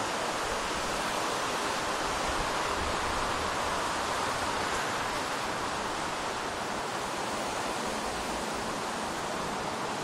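Steady wash of distant road traffic, a continuous hiss of tyres and engines with no single vehicle standing out, swelling slightly a few seconds in, with some wind.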